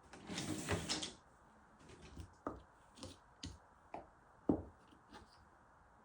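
A brief rustle, then a series of light, sharp taps and clicks as small objects are handled and set down on a tabletop.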